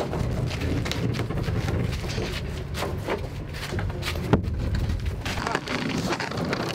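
Handling noise from a small fibreglass boat being carried and eased into place by several people: shuffling footsteps on concrete, scuffs and scattered knocks of the hull, over a steady low rumble.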